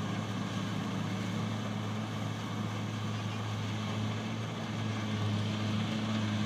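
Kubota rice combine harvester running steadily with a constant engine drone.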